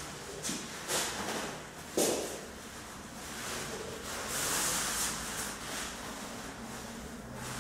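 Clear plastic wrapping rustling and crinkling as it is pulled off a motorcycle exhaust pipe, in several handfuls, with a sharper crackle about two seconds in.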